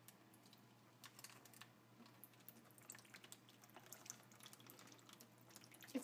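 Faint trickle of a thin stream of kitchen tap water, with scattered small drips and clicks as a small parrot bathes under it.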